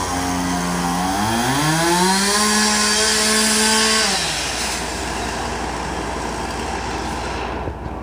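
Two-stroke chainsaw running at high revs as it cuts into a large cottonwood trunk. The engine note sags under load about a second in, climbs back and holds, then falls away and fades about four seconds in. A steady rushing noise carries on until just before the end.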